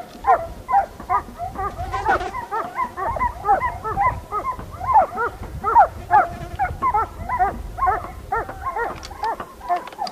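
A pack of hunting dogs baying on a wild boar: a continuous chorus of overlapping barks and yelps from several dogs, several calls a second.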